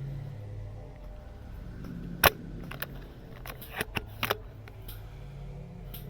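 Sharp clicks of airsoft guns firing: one loud shot about two seconds in, then a quick cluster of quieter shots over the next two seconds, over a steady low hum.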